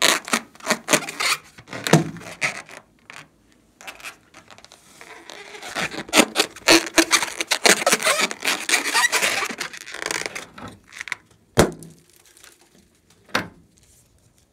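Hands rubbing and squeezing a long rubber balloon, the rubber skin crackling and squeaking in dense runs. There are two sharp taps near the end.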